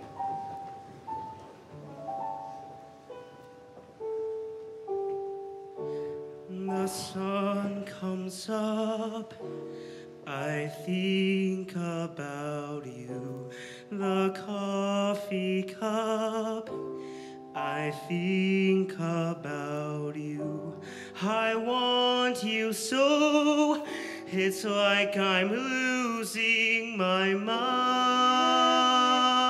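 A slow piano ballad, with single notes for the first few seconds; then a male solo voice comes in about six seconds in, singing with vibrato over the piano. Near the end the music swells into a long held chord.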